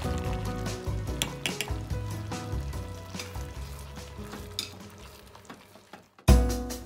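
Thick beef tendon stew simmering in a pot, bubbling, with small clicks of a ladle stirring it. It fades away over the last seconds, and music starts abruptly near the end.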